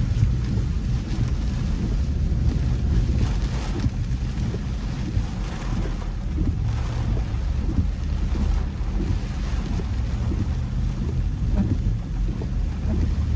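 A car driving through a heavy thunderstorm: a steady low rumble of wind and road noise, with an even hiss of rain over it.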